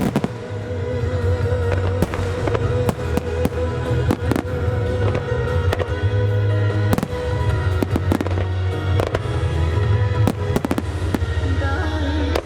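Aerial firework shells bursting in a rapid, irregular string of bangs, played with music that holds a steady low bass note.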